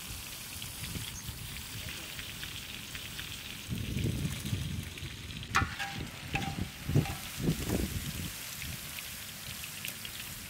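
Chicken pieces deep-frying in hot oil in a large iron wok: a steady sizzle, with a sharp clink about halfway through.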